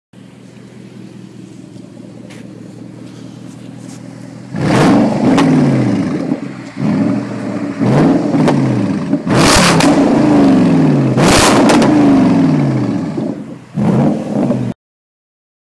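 Jaguar XFR's supercharged 5.0-litre V8 through its modified stock exhaust, idling steadily and then blipped hard several times. Each blip rises sharply and falls back to idle. The sound cuts off abruptly near the end.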